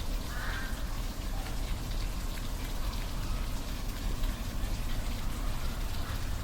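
Waterfall: steady rushing and splashing water with a deep rumble. A short animal call is heard right at the start.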